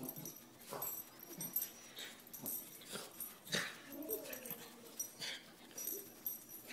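Small dog rolling and rubbing itself on a shag rug to work bath water out of its ears: irregular scuffing and rustling of fur against carpet, with a short wavering whine about four seconds in.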